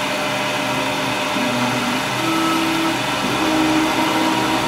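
Metal lathe running under power, its spindle turning while a threading insert, fed by a stepper-driven leadscrew, takes a light repeat pass along an M8 thread and removes very little metal. A steady machine hum, with a faint whine that shifts pitch a few times.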